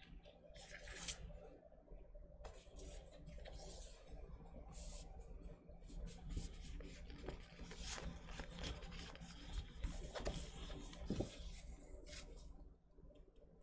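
Stiff glossy photo prints sliding and rubbing against each other as they are shuffled and fanned out by hand: a run of papery rustles and swishes, quieter near the end.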